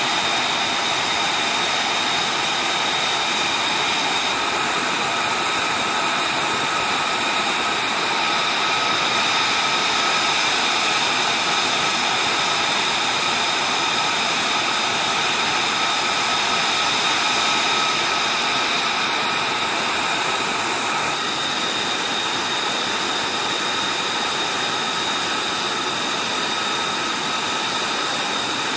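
F-35A Lightning II's Pratt & Whitney F135 turbofan running steadily at ground idle during hot pit refuelling: a constant rushing noise with several steady high whining tones on top.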